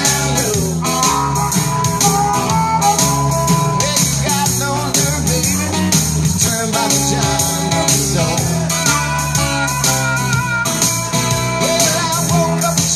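Acoustic guitar strummed in a steady rhythm with a harmonica playing over it, its held notes sliding and bending.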